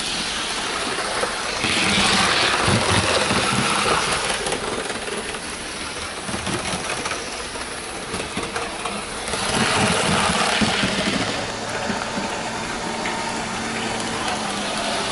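Hornby OO gauge HST model train running at top speed on the track: motor hum and wheel-on-rail rumble, swelling louder twice as it passes close.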